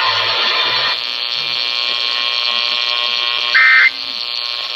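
Weather radio receiver playing the end of an alert: about a second of static hiss, then a steady electric buzz with many overtones. About three and a half seconds in comes a short, loud screech of two-tone EAS data: the first burst of the end-of-message code.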